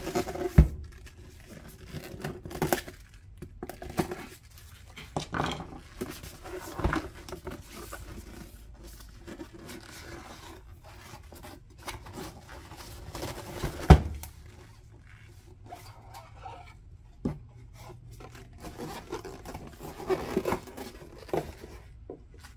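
Cardboard box being unsealed and opened by gloved hands: scraping and rustling of the cardboard flaps, with sharp knocks about half a second in and again about 14 seconds in.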